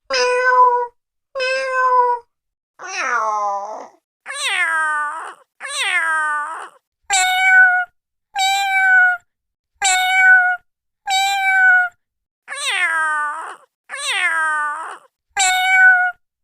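A cat meowing over and over: about a dozen separate meows, each about a second long and mostly falling in pitch, with short silent gaps between them. The same few calls repeat in pairs.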